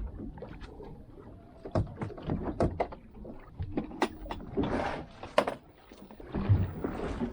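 Scattered clicks, knocks and rustling of fishing tackle being handled aboard a small boat while a new hook is fitted.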